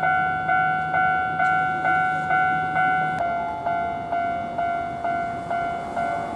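Japanese railroad crossing warning bell ringing its repeated electronic 'kan-kan' strikes, a little over two a second, the signal that a train is approaching. About three seconds in there is a click and the tone shifts slightly.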